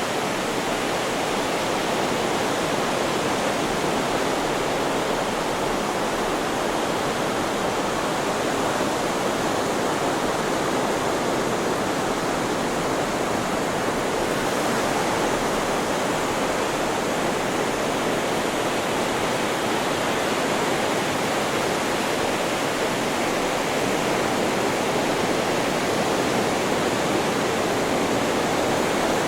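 A steady white-noise sleep track: an even, rushing hiss that holds level with no swells or breaks.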